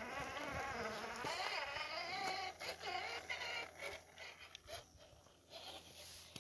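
Scale RC rock crawler's electric motor and gears whining, the pitch wavering up and down with the throttle. About two and a half seconds in the whine gives way to scattered clicks and taps, and the sound fades.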